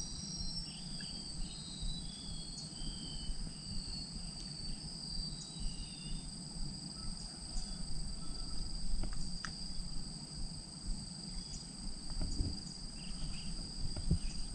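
Insects droning steadily on one high pitch, with a few short falling chirps over it in the first half and a low rumble underneath.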